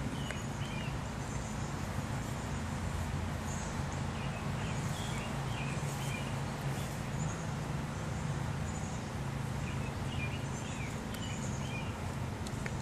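Outdoor ambience: a steady low rumble, with small birds chirping in short phrases a few times, about halfway through and again near the end.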